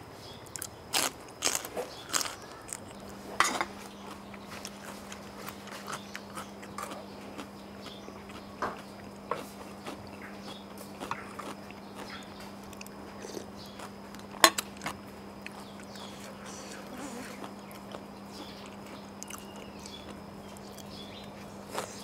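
Close-miked eating sounds: sharp crunches of biting into a raw green vegetable and chewing, loudest in the first few seconds, with another sharp crunch about two-thirds of the way through and softer chewing and mouth sounds between. A steady low hum starts about three seconds in.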